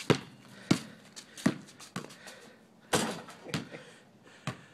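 A basketball bouncing on an asphalt driveway: about seven sharp bounces at an uneven pace, roughly one every half second to a second.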